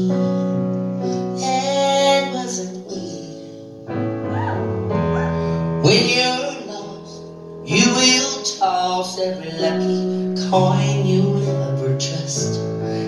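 A woman singing live into a microphone, with a piano-toned keyboard accompanying her in held chords. She sings in phrases of a few seconds, with short breaks between them.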